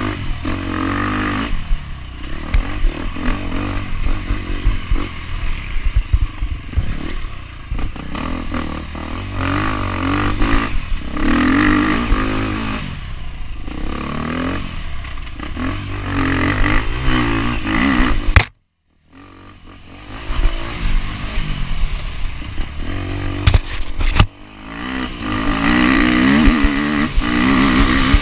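Enduro dirt bike engine, close up, revving up and falling off again and again as it is ridden hard over a rough dirt track, with clatter from the bike over the bumps. About two-thirds of the way in, the sound cuts out completely for about half a second.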